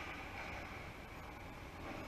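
Steady ice-rink background noise during a hockey game: a low hum with a hiss over it and no distinct events.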